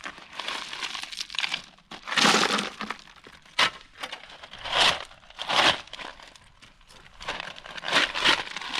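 Ballast (crushed stone) being scooped up and shifted, a gritty crunching scrape about every second, some strokes stronger than others.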